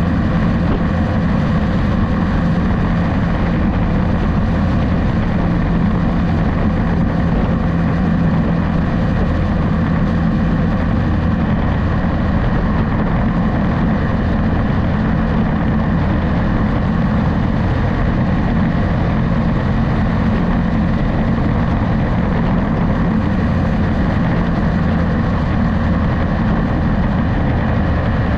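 Steady engine hum of a vehicle cruising on the open road, mixed with the rush of wind and tyre noise, with no let-up or change in pace.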